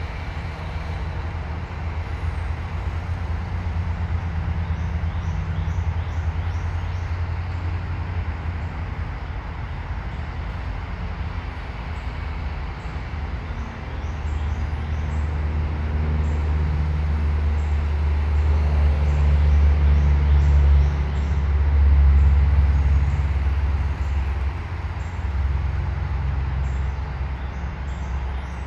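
A steady low background rumble that swells louder past the middle, with faint high ticks or chirps repeating above it.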